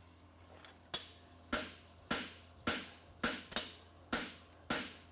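Hand hammer striking a red-hot steel horseshoe blank on an anvil, about eight blows at roughly two a second, starting about a second in, each a sharp ringing strike. The blows are spreading the thick inside material out to widen the shoe's branch.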